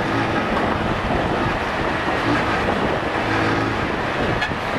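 Motorcycle riding in traffic: heavy wind rush on a helmet-mounted microphone over a running engine, with a steady low hum that comes and goes.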